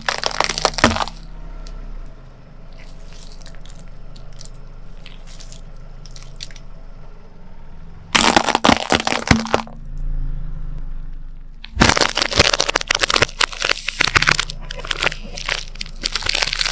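Walnut shells cracking and crunching as a car tyre rolls over and crushes them, in several bursts of sharp cracks, the longest near the end.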